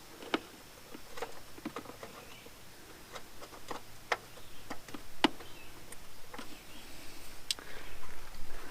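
Irregular light clicks and taps, spaced unevenly, as parts are handled and set back into a car's engine bay.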